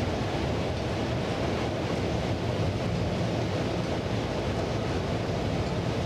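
Class 33 diesel locomotive's Sulzer eight-cylinder engine running with a steady low drone, heard from inside the cab, mixed with the even rumble of the locomotive moving along the track.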